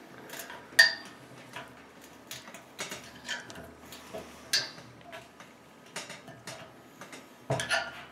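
Crescent wrench cranking down the bolt of a chassis punch on a stainless steel brew kettle wall: irregular metallic clicks and clinks as the wrench is turned and refitted, with louder clinks about a second in, midway and near the end.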